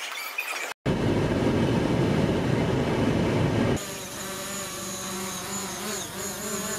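A loud rushing noise for the first few seconds, then the buzzing whine of a small quadcopter drone's propellers, its pitch wavering slightly, as the drone lifts off from a raised hand.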